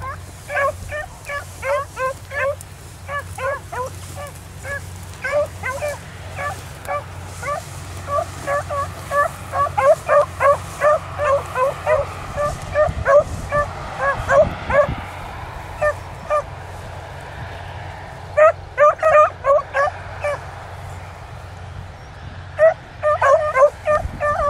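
Beagles baying as they run a rabbit track: a rapid string of short, pitched yelps, several to the second, breaking off briefly twice in the second half and then picking up again.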